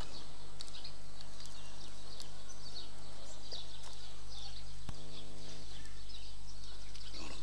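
Steady electrical hum from an amplified sound system during a pause in Quran recitation, with faint high chirps throughout and a brief pitched tone about five seconds in.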